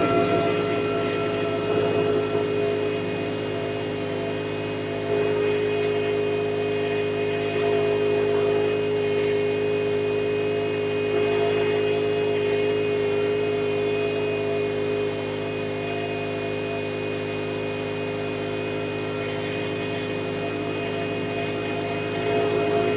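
Scag Windstorm stand-on debris blower running steadily, its engine and fan giving a continuous hum of several held tones, with small shifts in loudness a few times.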